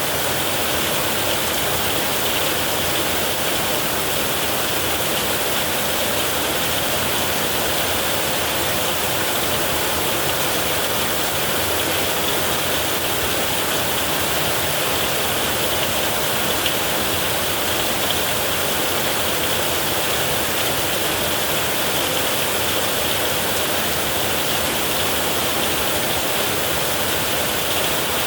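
Heavy rain falling steadily on a metal roof: a dense, even hiss of drops with no breaks or thunderclaps.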